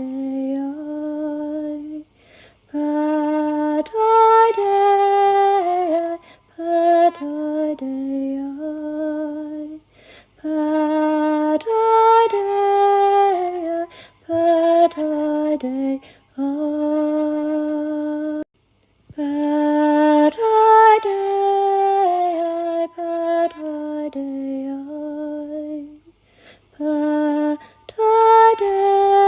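A woman singing alone in slow, held phrases a few seconds long, with short breaks between them: channeled chant-like healing singing, with no words that can be made out.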